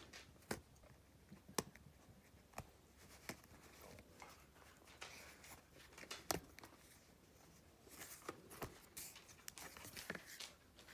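Faint handling of a thick cardboard board book: scattered light clicks and taps of fingers on the cover, then rustling as the stiff cover is opened near the end.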